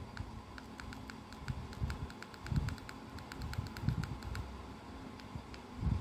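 Keypad buttons of a Jio feature phone pressed one after another in quick succession, a rapid string of short clicks that stops about four and a half seconds in, as the freshly cleaned keys are tested. A few dull bumps from handling the phone come through too.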